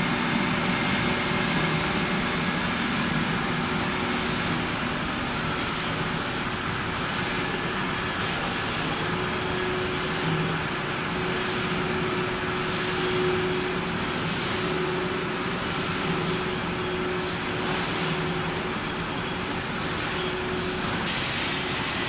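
Steady machinery noise of a mosaic glass furnace line with its roller conveyors running, a faint steady hum coming in partway through.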